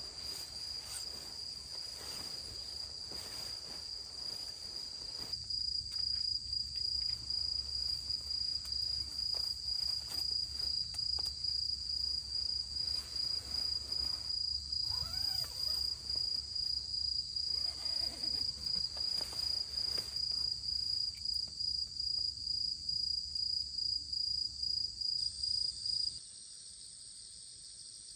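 Insects, crickets by the tags, trilling in one steady high note over a low background rumble. The sound changes abruptly near the end.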